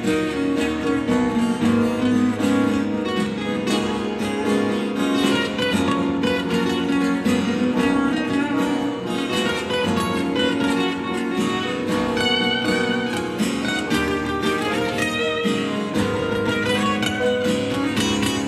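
Live band playing an instrumental passage without vocals, with guitar prominent.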